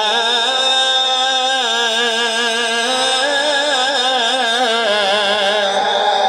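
A man chanting the Arabic opening blessing on the Prophet in a single drawn-out melodic phrase, his pitch wavering up and down in ornamented turns.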